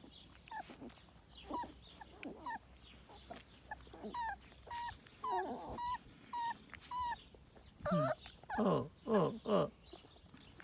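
Newborn Kangal puppies whimpering and squealing as they compete to nurse: many short, high cries, with a run of louder, longer falling cries near the end.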